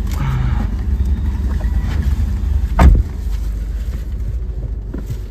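Steady low rumble of a car running, heard from inside the cabin, with a single sharp thump nearly three seconds in.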